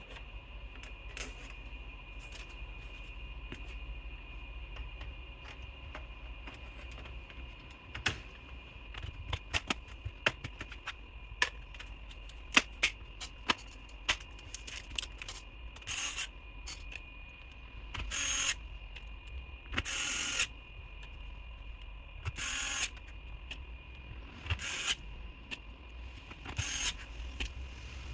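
Scattered small clicks and taps, then a run of short scraping swishes, from hands working on an open laptop while fitting a memory module and handling its parts.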